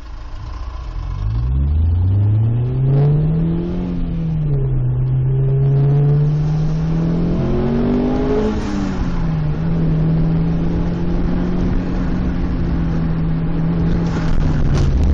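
Car engine heard from inside the cabin, pulling away and accelerating through the gears. Its pitch climbs, drops back twice at upshifts, then holds steady while cruising and eases off near the end.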